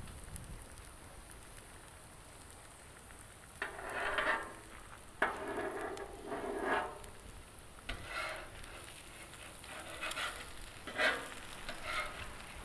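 Metal spatula scraping and tapping on the steel top of a Blackstone griddle as it cuts apart fried eggs: a string of short scrapes from about three and a half seconds in, with a few sharp clinks. Eggs and hash browns sizzle faintly underneath.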